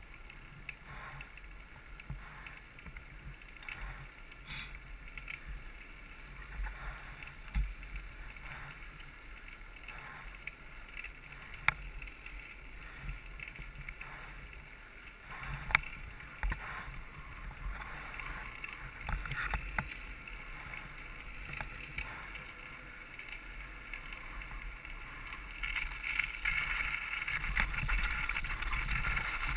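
Mountain bike rolling fast downhill, heard from a helmet camera: tyre rumble and wind noise, with a few sharp clicks and knocks from the bike. It gets louder and rougher near the end as the tyres run onto loose rocky gravel.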